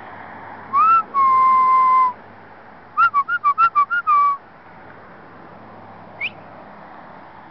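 A person whistling: a short rising note, then a long held note, then a quick run of about six short chirps ending in a slightly longer note, and one more short rising whistle near the end. A steady low hum runs underneath.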